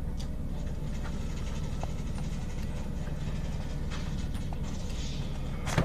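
Faint scattered scrapes and clicks of a flathead screwdriver picking at the adhesive that seals a hard drive's cover, with a brief longer scrape near the end. A steady low hum runs underneath.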